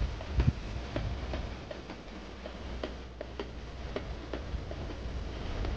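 Mountain bike rolling downhill on asphalt, with a regular light ticking from the bike at about three ticks a second over a low rumble of wind and tyres.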